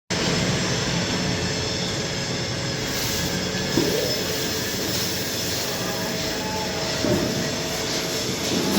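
CNC laser cutting machine running: a steady hiss and hum, with three short whines that rise and fall, about four and seven seconds in and near the end.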